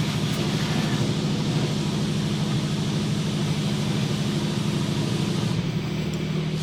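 Steady machine hum inside an automatic car wash, with a low drone over a rushing haze. The drone shifts slightly lower in pitch near the end.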